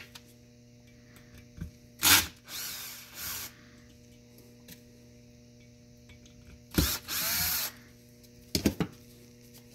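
Cordless drill-driver running in three short spurts on the screws of the aluminium block over a Peltier module's heat sink.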